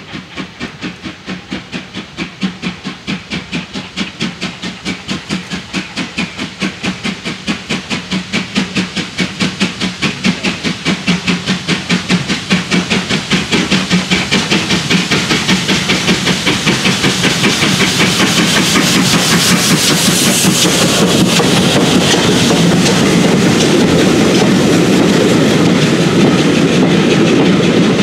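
Steam locomotive hauling a train of coaches, its exhaust beats chuffing rhythmically and growing steadily louder as it approaches. From about two-thirds through, the separate beats give way to the steady rumble and clatter of the passing coaches' wheels on the rails.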